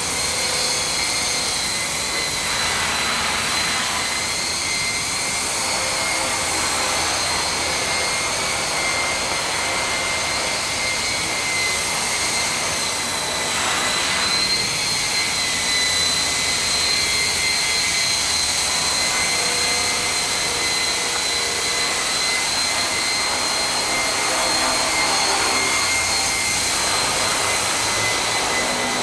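Art-Tech Falcon 3D, a small 400-class electric RC helicopter, running with a steady high-pitched whine from its motor and drive, heard in a concrete parking garage.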